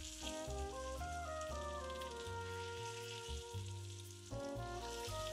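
Potato slices sizzling steadily in hot oil in a cast iron pot, with a bed of background music over it: a bass line and a melody of stepped notes.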